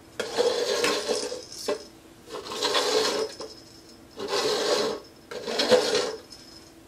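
Upside-down plastic cups slid and shuffled across a tile floor by hand: four scraping rushes of about a second each.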